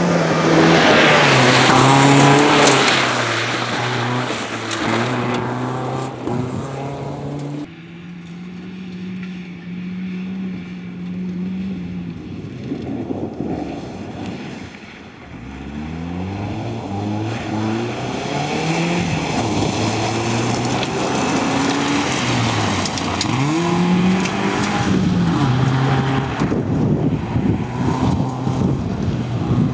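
Audi 80 B4 quattro rally car's engine driven hard on loose gravel, its note rising through the gears and falling back on lifts and gear changes again and again, with tyre and gravel noise underneath. The sound changes abruptly at a cut about eight seconds in.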